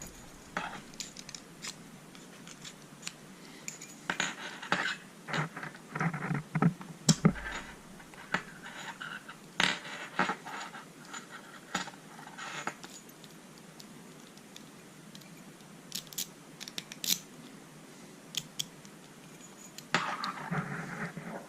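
A padlock and small metal tools being handled: scattered sharp clicks and taps with short metallic scrapes, and a longer stretch of scraping near the end.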